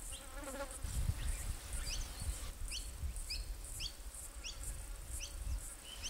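Insects making a high, pulsing buzz, with about six short rising chirps coming roughly every two-thirds of a second from about two seconds in, over a low rumble.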